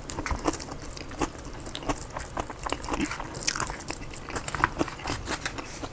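Close chewing and crunching of a salad bowl of lettuce, steak, guacamole and cheese, in many short, irregular crunches.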